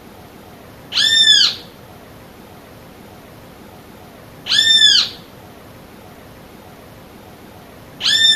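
Great kiskadee (bem-te-vi) calling: three identical short calls, each rising and then falling in pitch, about three and a half seconds apart, the last right at the end.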